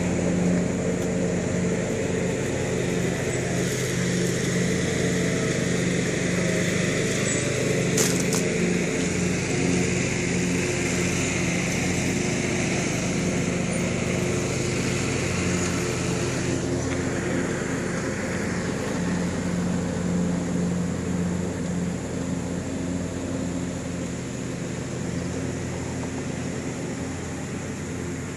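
Engine of a 1967 Ford Galaxie 500 convertible idling steadily, with one sharp click about eight seconds in.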